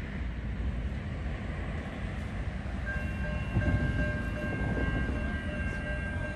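Adelaide Metro 3000-class diesel railcar set approaching the platform with a low rumble, and from about three seconds in a steady, high-pitched horn held on past the end.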